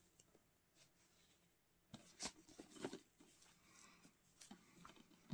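Near silence: quiet room tone with a few faint clicks and rustles about two to three seconds in.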